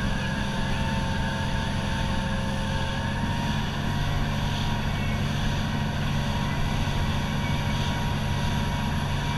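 Motorboat engines running steadily at speed, a constant drone with a faint whine that rises slightly in pitch about three seconds in.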